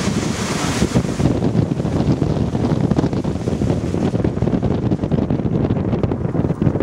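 Strong supercell storm wind buffeting the microphone: a dense, gusty low rumble with a hiss on top that eases somewhat about four seconds in.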